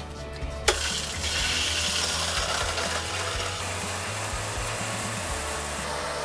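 A sharp click, then a steady hiss of water rushing through a newly installed water softener as its supply is turned on.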